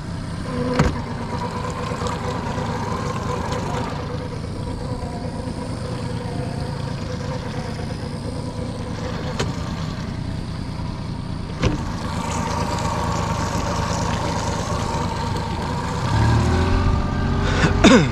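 A boat's outboard motor runs steadily under way, with a few sharp knocks along the way. About sixteen seconds in, the engine gets louder.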